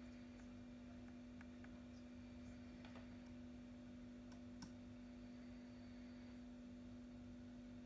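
Near silence: a steady faint hum, with a few faint clicks about three and four and a half seconds in.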